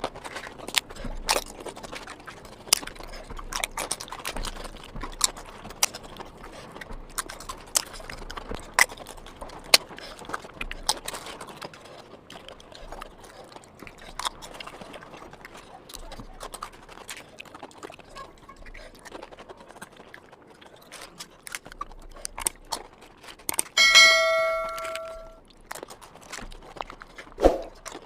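Close-up eating sounds: a steady run of clicks, smacks and crunches from chewing and food being handled. About three-quarters of the way through, a bright bell-like ding rings out and fades over about a second and a half, the loudest sound, and a short knock follows near the end.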